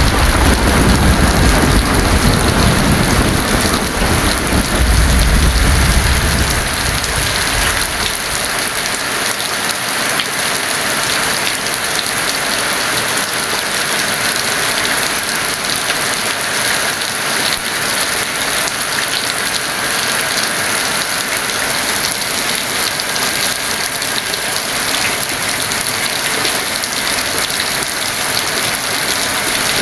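Heavy rain falling steadily with an even hiss. Thunder rumbles low through the first few seconds, swells again about five seconds in, and dies away by about eight seconds, leaving only the rain.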